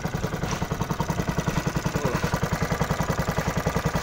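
Small engine of a fishing boat running steadily, with a fast, even beat of about a dozen pulses a second.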